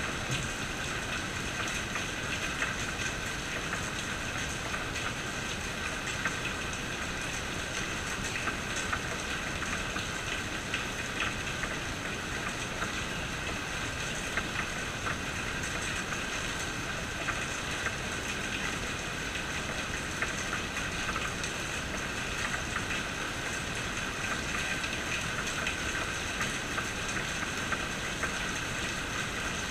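Steady rain falling, with individual drops ticking sharply here and there.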